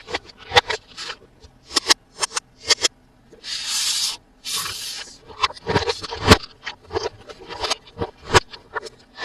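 Handling of toys and packaging: a run of light clicks and taps, with two longer scraping rustles about three and a half seconds in.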